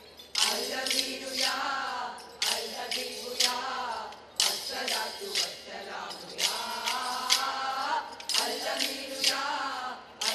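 Kolkali: dancers strike short wooden sticks together in quick rhythmic runs of sharp clacks, four runs in all, over a group singing the Kolkali song.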